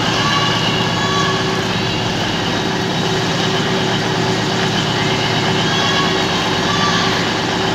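Passenger train standing at a station platform, its engine or traction equipment running with a steady, even hum.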